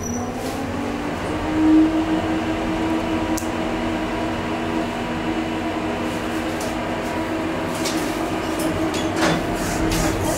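Berlin S-Bahn electric train in an underground station: a steady rumble with a multi-tone electric motor hum over it, and a brief louder swell about two seconds in.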